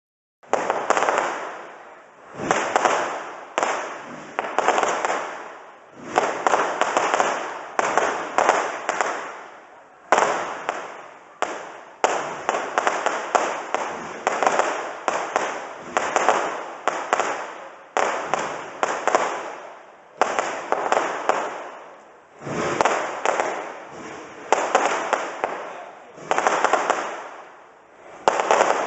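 Aerial fireworks display: a rapid series of shell bursts, each a sharp bang followed by a long rolling echo that fades, at roughly one or two bursts a second.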